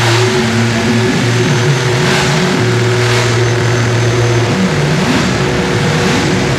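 Electronic noise-drone improvisation on DIY square-wave oscillators and circuit-bent electronics. A low buzzing drone drops out and comes back over a held higher tone, while other pitches slide up and down and swells of hiss rise and fall about once a second.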